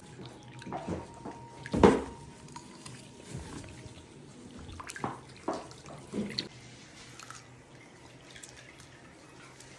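Water sloshing and splashing in a foot-soak tub as bare feet move in it: a few separate splashes, the loudest about two seconds in, and a cluster more around five to six seconds.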